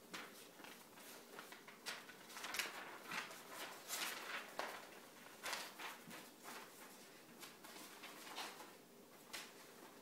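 Loose paper sheets rustling and crackling as they are handled and shuffled, a string of faint, irregular crinkles.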